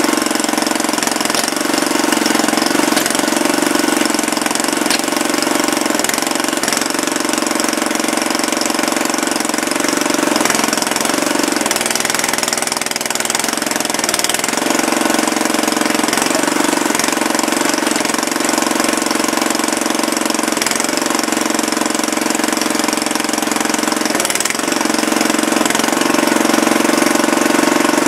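Small hydraulic digger's engine running steadily while the bucket digs and levels soil. The engine note dips and wavers briefly every few seconds as the arm works.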